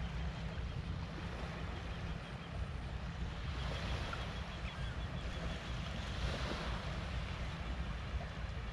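Wind rumbling on the microphone over the soft wash of small waves on a sandy shore. The hiss swells twice, about halfway through and again shortly after.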